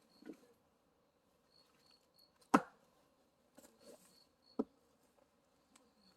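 Axe strikes splitting firewood: one sharp crack about two and a half seconds in, then a lighter knock about two seconds later.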